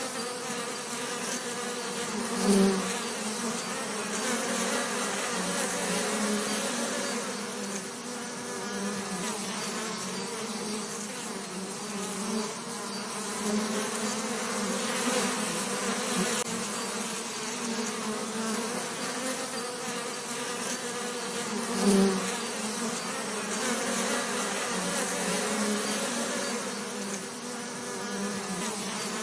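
Bees buzzing in a steady, wavering drone, with two brief louder swells, about two and a half seconds in and again near the end.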